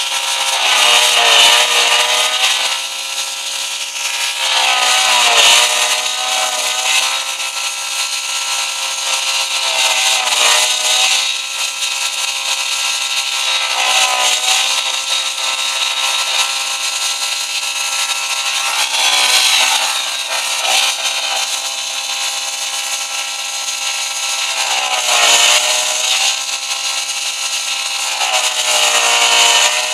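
Car engine held at sustained high revs, a steady high-pitched screaming note that sags briefly about every four to five seconds before climbing back. It is being over-revved deliberately to run it until it blows up.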